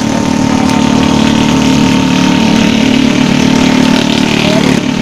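An engine idling steadily, loud and close, with an even low hum.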